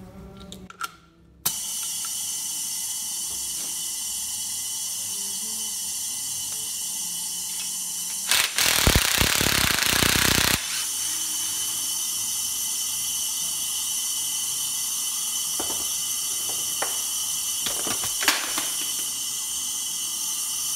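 A DeWalt cordless drill runs for about two seconds, about eight seconds in, driving a valve spring compressor on a GM LQ4 V8 cylinder head. A few sharp metallic clicks follow from the valvetrain parts being handled, over a steady hiss that starts about a second and a half in.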